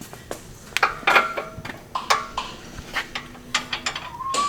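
Irregular metallic clinks and light taps of hand tools against steel suspension parts, about eight or nine over a few seconds, some ringing briefly.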